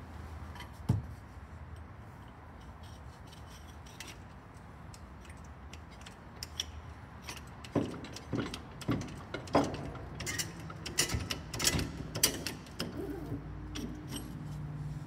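Hand pump of a hydraulic aircraft tripod jack being worked, its steel handle clicking and clanking with each stroke. The clicks come irregularly, a few per second, through the second half, as the jack is brought up to take a little of the wing's weight. There is a single knock about a second in.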